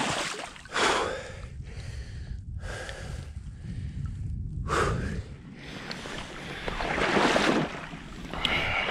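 A man breathing hard, several separate heavy breaths, while wading through river water, with water sloshing around him.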